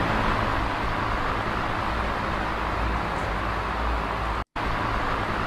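Recorded electric fan noise played as a masking sound: a steady rush of air, strongest in the middle and upper range, over a low hum. It drops out for an instant about four and a half seconds in.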